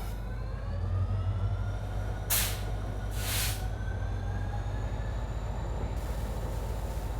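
EMD 16-cylinder two-stroke diesel engine of a WDP-4D locomotive accelerating, heard from on board the train: a deep steady hum under a whine that rises slowly in pitch as the engine works harder. Two short hisses, a second apart, come a little over two seconds in.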